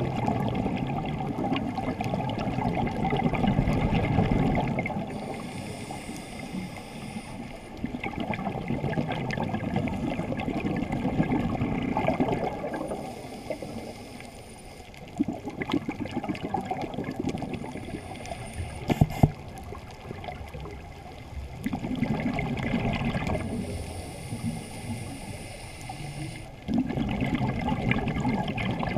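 Scuba diver's exhaled bubbles gurgling from the regulator, muffled through the camera's waterproof housing. They come in bursts of a few seconds with quieter stretches between, in step with the diver's breathing.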